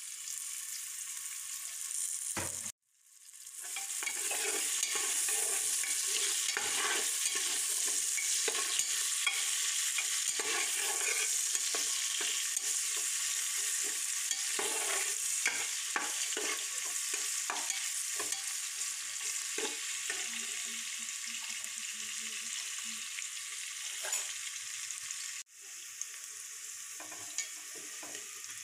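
Chopped onion and garlic sizzling in hot oil in a pan while being stirred, with the spatula clicking and scraping against the pan. The sound cuts out briefly about three seconds in and comes back as a louder, dense sizzle, dipping again for a moment near the end.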